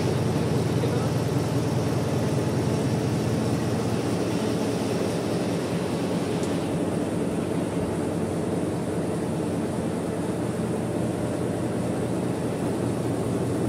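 Richpeace multi-head computerised embroidery machine running, its needle heads stitching into quilted saddle pads with a steady, even mechanical running sound. The higher part of the sound drops away about six and a half seconds in.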